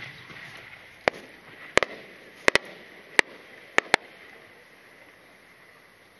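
A series of sharp firework pops, about seven in all, singly and in quick pairs over about three seconds, from the small effects attached to a 10-inch Japanese aerial shell as it climbs, before its main burst.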